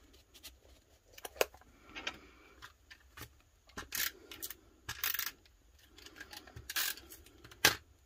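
Hands handling paper cut-outs and a small plastic item on a cutting mat: soft paper rustles and scrapes, scattered sharp clicks and taps, and three short hissing rustles around the middle.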